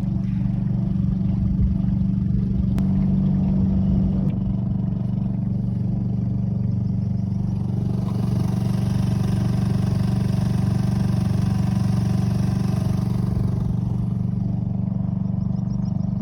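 Small outboard motor on a canoe running at a steady low throttle.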